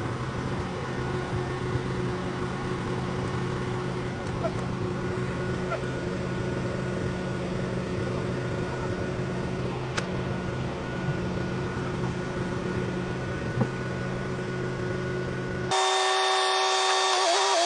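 Engine of heavy equipment running steadily at a constant speed, with a few faint clicks and knocks. Near the end it cuts off abruptly and music begins.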